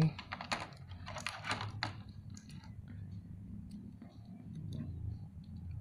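Small clicks and taps of action-figure armor pieces being handled and fitted onto the figure's arm. They come thick in the first two seconds, then thin out to a few scattered ticks.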